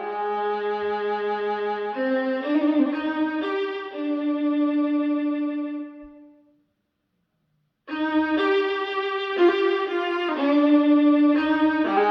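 Violin music with long held notes, played back through Fyne Audio F500 SP loudspeakers. The phrase dies away about six seconds in, there is a second or so of silence, and then the violin comes back in.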